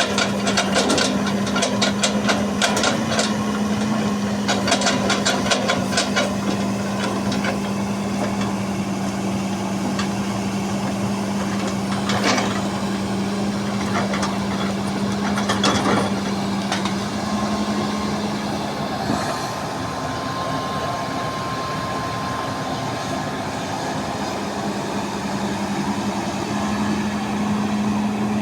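Heavy construction machine's diesel engine running steadily. A quick run of sharp knocks and rattles comes over the first several seconds, and two single knocks follow later.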